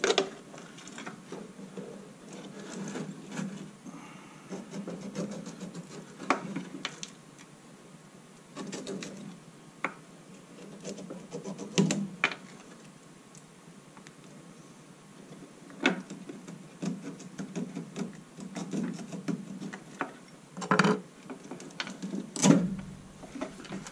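Hands trimming back the insulation on tail-light wires and handling the plastic tail-light housing: rustling and scraping, broken by a handful of sharp snips and clicks at irregular intervals, the loudest near the end.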